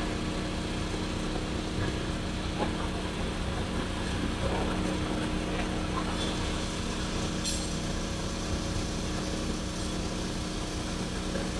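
A vehicle engine idling steadily, a constant low hum over an even wash of street noise.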